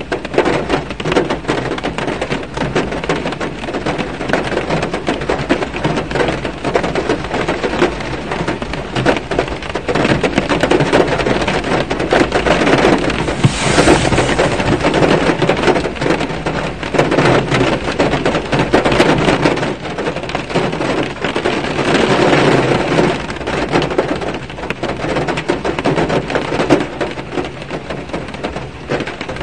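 Steady autumn rain pattering on a car's windshield and body, heard from inside the cabin as a dense patter of drops. It grows heavier for a moment about halfway through and again a little later.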